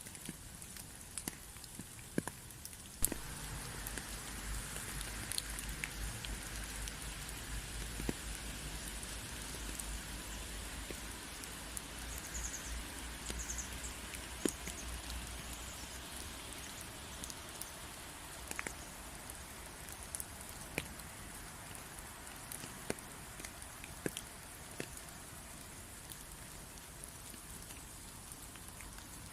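Steady rain falling, with single drops ticking sharply now and then against a continuous patter. About three seconds in the rain thickens and a deep low rumble joins it, fading out by about halfway.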